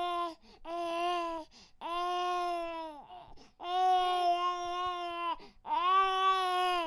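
Baby crying: five wails in a row, each half a second to nearly two seconds long, with short breaths between, held at a fairly steady pitch that drops at the end of each wail.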